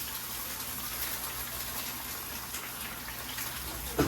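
Eggs sizzling and crackling in a hot frying pan, a steady hiss with scattered pops. A short knock sounds near the end.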